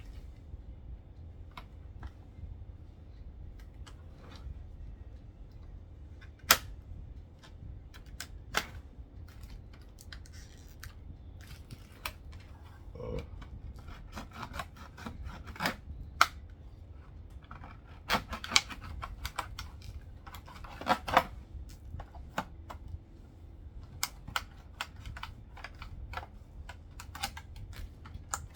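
Stiff hard-plastic blister packaging being cut and pried open by hand: scattered sharp clicks and snaps, with several loud single cracks and short clusters of crackling, over a steady low hum.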